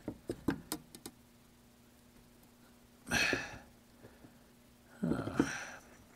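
A few small clicks and taps of a radio's metal top cover being worked onto its chassis, then two breathy exhalations of effort, about three and five seconds in, as the tight-fitting cover is pushed home.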